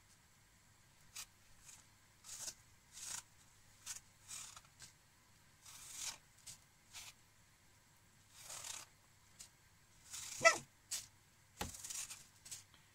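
Vegetable peeler scraping the skin off an apple in a string of short rasping strokes, roughly one or two a second. Near the end a louder brief pitched squeal and a single low thump.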